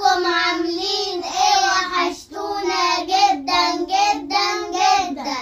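Three children singing together in unison, a short sung tune in held notes, in two phrases with a brief break about two seconds in.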